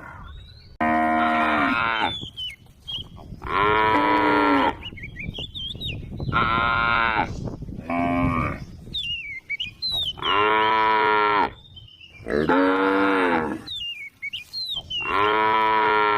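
Cattle mooing over and over: seven drawn-out calls of about a second each, coming every two to three seconds.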